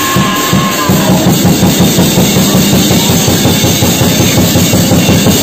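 Loud music with a fast, driving drum kit beat.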